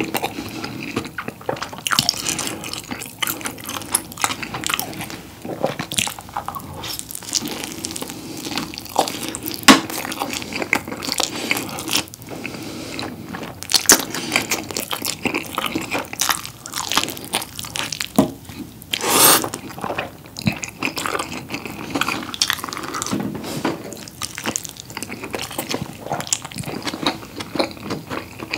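Close-miked chewing and biting of a whole pizza rolled up in one piece, with its cream cheese crust: a continuous run of small mouth clicks, smacks and crunches as bites are taken and chewed.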